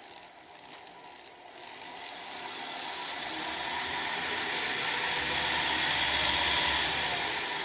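Qualters and Smith QDM750 pillar drill running on its half-horsepower three-phase motor through belt and pulleys, a steady, quiet mechanical whirr. It grows louder over the first six seconds or so and eases slightly near the end.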